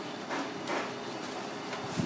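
Soft, faint handling sounds of raw grouper pieces being pushed together on a plastic cutting board by a gloved hand, over a steady background hiss.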